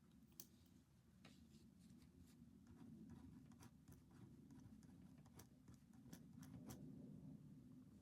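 Faint pen-on-paper writing: short scratching strokes and light taps scattered throughout, over a low steady room hum.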